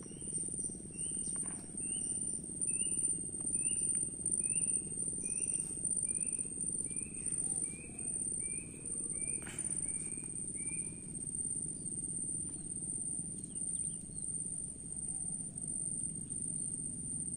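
An insect chorus keeps up a steady, very high-pitched drone. Over it, a bird repeats a short whistled note nearly twice a second for about the first ten seconds, each note a little lower than the last, before it stops. A low background rumble runs underneath.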